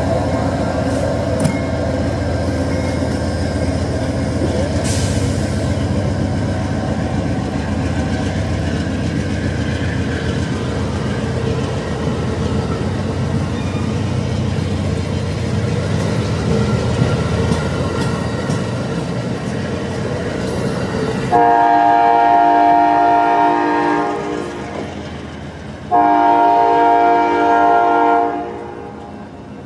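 Amtrak train of double-deck Superliner passenger cars rolling past, with a steady rumble and rattle of wheels on the rails. Near the end come two long blasts of the locomotive's multi-tone air horn, the first about two and a half seconds long and the second about two.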